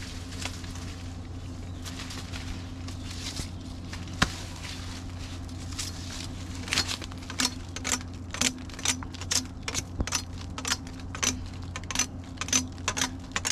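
Machete chopping sugarcane: a few single sharp chops, then from about halfway a quick run of chops, roughly two a second, as a cut cane stalk is worked.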